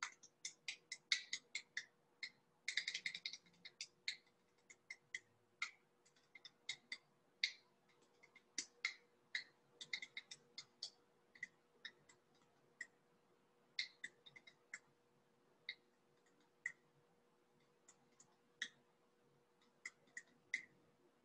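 Faint, irregular clicking, a few sharp clicks a second with gaps between, growing sparser in the second half, over a faint steady hum.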